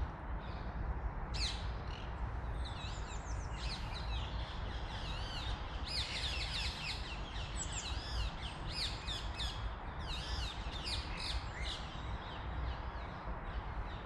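Woodland songbirds singing: many short chirps and whistled phrases from several birds overlapping at once, a busy chorus.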